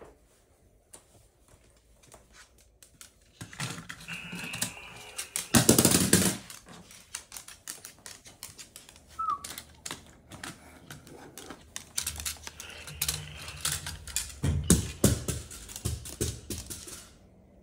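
Moluccan cockatoo's claws clicking on a hardwood floor as it walks, in quick uneven taps, with a louder burst of noise about six seconds in.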